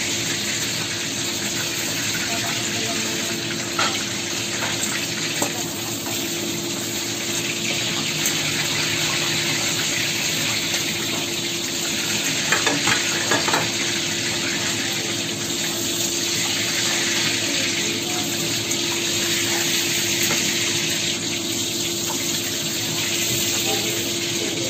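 Prawns sizzling as they fry in hot oil in a stainless steel wok, with a few sharp clicks of the turning utensil against the pan, about four seconds in and again around thirteen seconds in. A steady low hum runs underneath.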